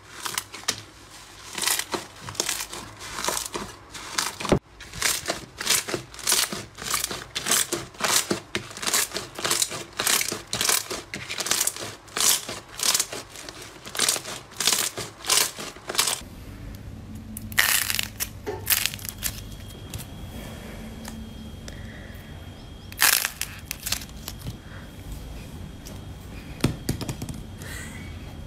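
Slime being pressed and squeezed by hand, crackling and popping in rhythmic squelches about twice a second. About halfway through the rhythm stops, leaving a steady low background with a few separate sharp pops.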